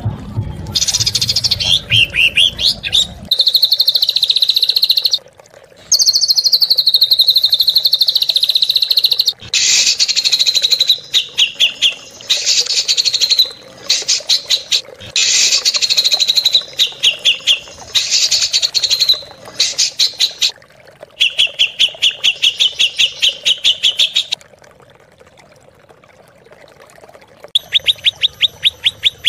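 Songbird song from a masteran tutoring recording of harsh, rapid-fire 'tembakan' phrases, played loud. Runs of fast trilled notes and downward-sliding phrases are broken by short pauses, with a quieter gap of a few seconds near the end.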